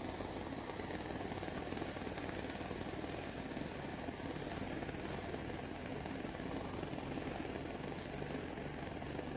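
Mini butane torch flame burning with a steady hiss, stuck on because its shut-off button isn't working.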